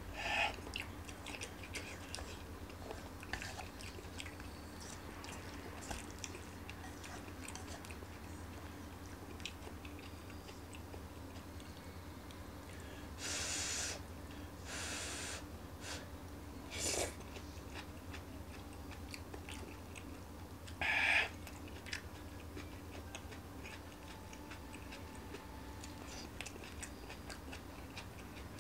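Close-up eating sounds: soft chewing of a vegetable stir-fry with small wet mouth clicks, and a few short, louder slurps about halfway through as strands of food are sucked in.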